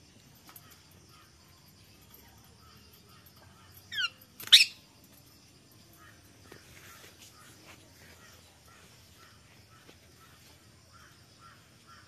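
Indian ringneck parakeet calling: a quick run of short rising notes about four seconds in, then one loud harsh screech right after. Otherwise faint, with a steady high hiss and soft repeated chirps in the background.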